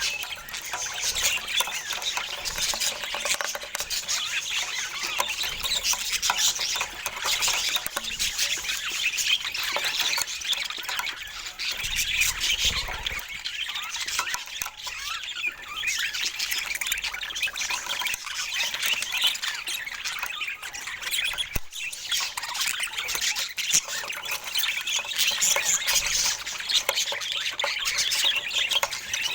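Budgerigars chattering and chirping continuously: a dense run of short, high chirps and squawks.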